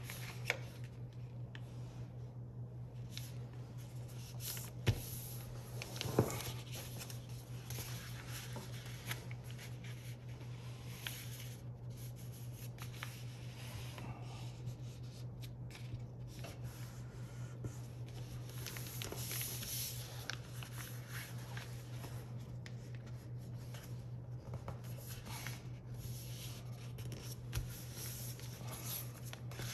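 A sheet of paper being folded into a paper airplane by hand on a tabletop: fingers rub and slide along the creases with soft scraping and rustling, and there are a few brief knocks. A steady low hum runs underneath.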